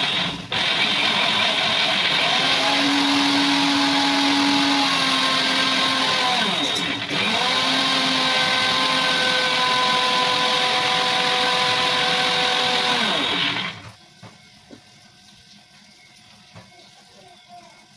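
Electric mixer grinder running, grinding a paste of aloe vera, neem leaves and turmeric with a little oil. A couple of short pulses at the start, then a steady run; near the middle it is switched off, winds down briefly and starts again, and about three-quarters of the way through it is switched off and winds down.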